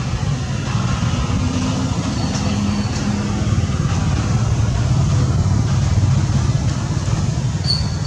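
Steady, loud low rumble of outdoor background noise, with two faint, short high-pitched tones, one about two and a half seconds in and one near the end.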